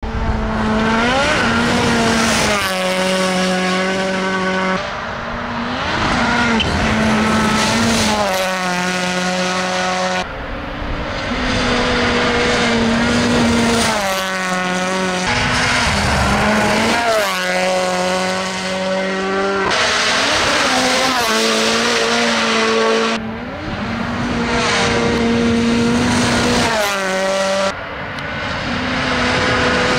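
Toyota GR Yaris Rally1 car's 1.6-litre turbocharged four-cylinder engine at full throttle on gravel, its pitch holding high and then stepping through rapid gear changes. It is heard in several separate passes that cut abruptly from one to the next.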